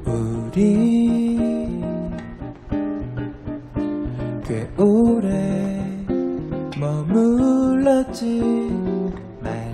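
A man singing a slow ballad in Korean to his own nylon-string classical guitar accompaniment, the voice gliding between long held notes over the plucked guitar.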